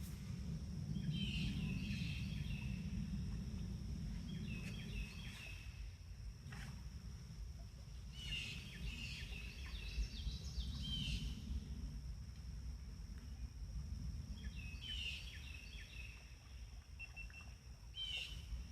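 A songbird singing short, quick warbled phrases, about five of them a few seconds apart, over a steady low rumble and a faint steady high tone.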